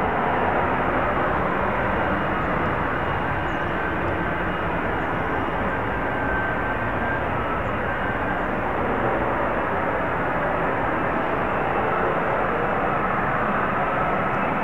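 Lockheed Martin F-35B hovering, its F135 jet engine and shaft-driven lift fan running at hover power: a steady, loud jet noise with a faint whine in it.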